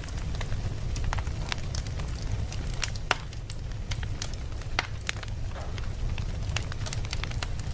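Fire burning, with a steady low rumble under many irregular sharp crackles and pops; one louder pop about three seconds in.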